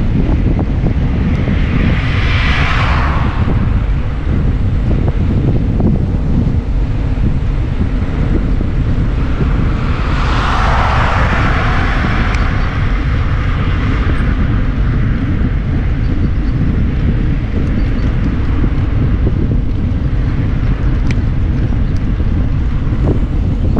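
Wind buffeting an action camera's microphone on a moving bicycle, a loud steady low rumble. Twice a car passes, its tyre noise swelling and fading, about two seconds in and again around ten to twelve seconds in.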